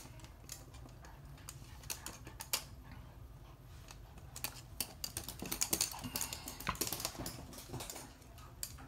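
Toy poodles' claws clicking and tapping on a hard glossy floor as they trot about, in quick irregular ticks that come thickest a little past the middle.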